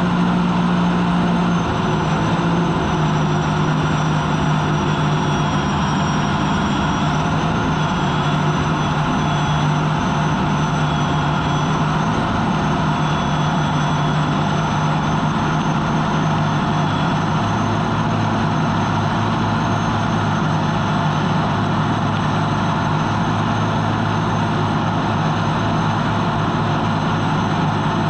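Turbine engine of an unlimited racing hydroplane at speed, heard onboard. A steady high whine and a low drone sit over a loud, continuous rush of noise. The drone drops in pitch about two seconds in and deepens again a little past the halfway point.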